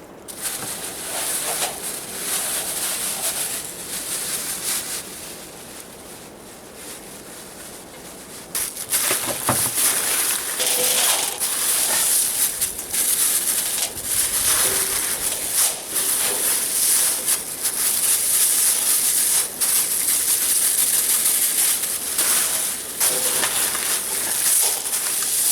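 Cut-up meat sizzling and crackling in a hot pan as it is set to stew, the hissing starting up suddenly about a third of the way in and carrying on steadily.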